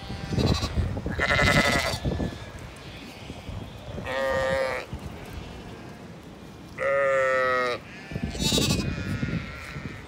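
Zwartbles sheep bleating, with two long, clear bleats about four and seven seconds in, over a low rumble of wind on the microphone.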